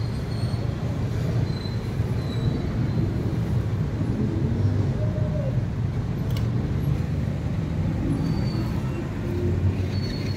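Steady low rumble of motorcycle and car engines running and moving about.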